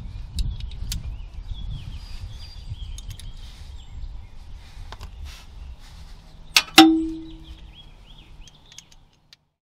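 Metal hand tools being worked on the underside of a car: a few small clicks and rubbing, then one sharp metal clang about seven seconds in that rings briefly. Birds chirp faintly in the background.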